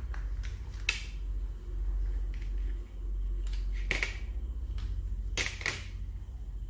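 Small plastic two-pin wire connector being opened and handled as a wire is fitted into it: a few sharp clicks and snaps. The loudest come about a second in, at about four seconds, and as two close together at about five and a half seconds.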